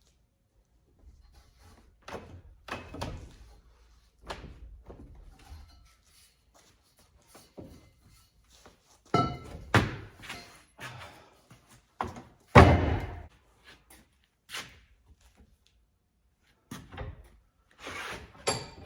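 Irregular knocks and thunks, a dozen or so short hits with brief ringing, the loudest about two-thirds of the way through.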